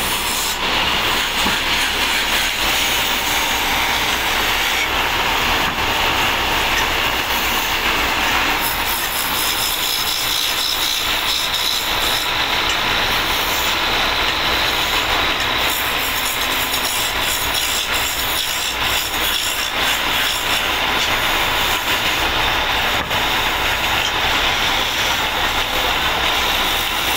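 Motor-driven wood lathe running as a hand chisel cuts a spinning wooden rolling pin blank, a steady, loud, rough cutting noise with a faint steady whine from the machine.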